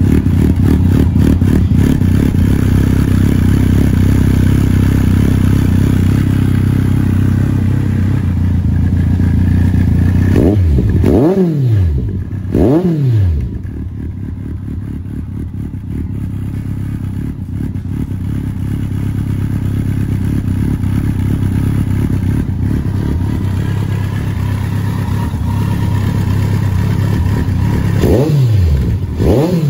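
Kawasaki GTR1400's inline-four engine idling through a BlackWidow slip-on silencer with its baffle removed. There are two quick throttle blips about a third of the way in and two more near the end.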